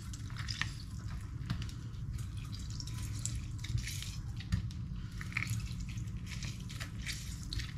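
Mandarin halves being squeezed by hand over a strainer, the juice dripping into a bowl: small, irregular wet clicks and splashes.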